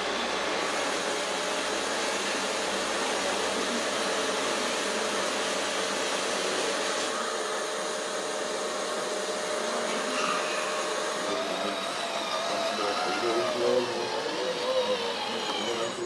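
Radio-controlled model trucks and construction machines whirring steadily, with a constant tone. About eleven seconds in, wavering higher tones that rise and fall join it.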